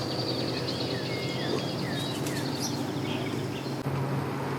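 Birds chirping in short, repeated calls over a steady low engine hum.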